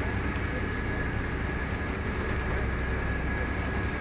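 Boat engine running steadily: a low, even rumble with a faint steady high whine over it.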